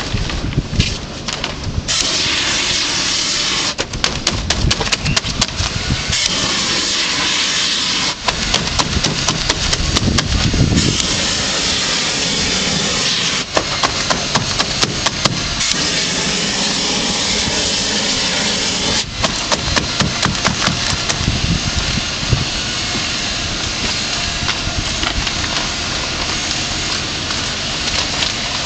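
Gas-fired shrink-wrap heat gun running with a steady loud hiss as it heats and welds 180-micron shrink film around the perimeter band, with many sharp crackling clicks over it. The hiss comes up about two seconds in and dips briefly a few times.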